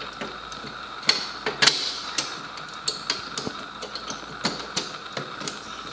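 Irregular plastic clicks and knocks, about eight in a few seconds, as a hand twists and wiggles a headlight bulb loose in a BMW M3's headlight housing. A steady faint high hum runs underneath.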